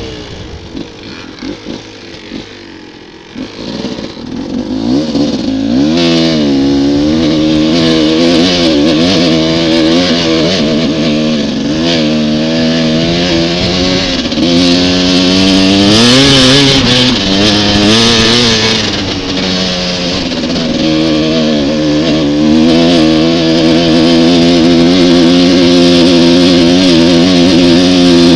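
Motorcycle engine under load on a climbing gravel track, quieter for the first few seconds and then pulling hard about four seconds in. The revs rise and drop again and again as the rider works the throttle and gears.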